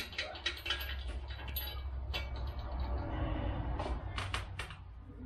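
Metal clinks and knocks from hand work on an engine hanging from a shop crane: a string of sharp clicks over a low steady rumble.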